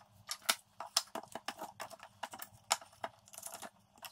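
Irregular clicks and knocks of wood and plastic as a wooden block and a one-handed bar clamp are set in place inside a wooden table frame, with a quick cluster of clicks about three and a half seconds in.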